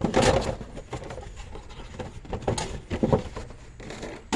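Handling noise as a car's round air cleaner filter is swapped: a few short bursts of rustling and scraping, one at the start, two close together past the middle and one at the end.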